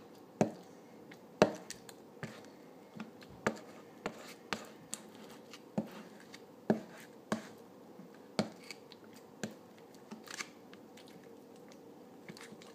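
Metal spoon stirring and lifting slime on a paper plate, with a dozen or so irregular sharp clicks and taps, the loudest two near the start.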